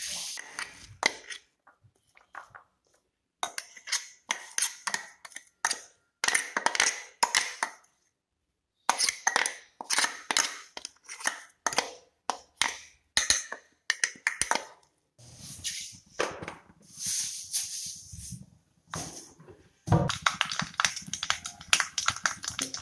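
A metal spoon scraping and clinking inside a steel mixer-grinder jar as ground chutney is scooped out, in irregular runs of short clinks and scrapes with brief pauses.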